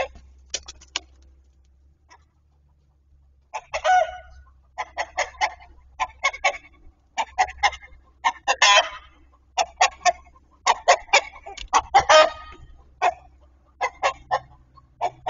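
Chickens cackling: after a quiet start, a rapid run of short, sharp clucks and squawks from about three and a half seconds in.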